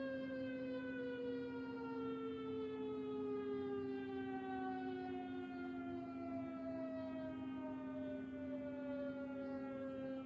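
Civil defence siren winding down: its wailing tone falls slowly and steadily in pitch over a steady low hum.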